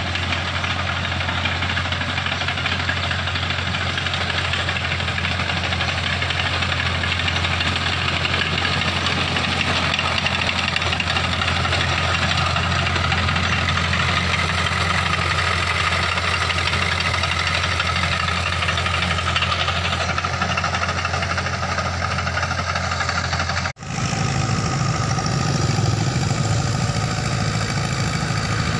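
Farm tractor engine running steadily with a strong low hum. About 24 s in the sound drops out for an instant and comes back as a deeper, rougher engine note.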